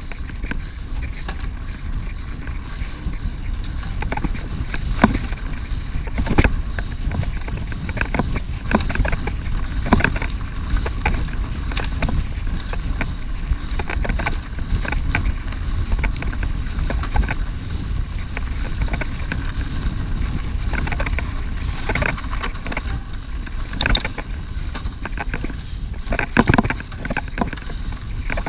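Mountain bike ridden fast over a dirt forest trail: a steady rumble of tyres and wind on the microphone, with frequent knocks and rattles as the bike jolts over bumps, several in quick succession near the end.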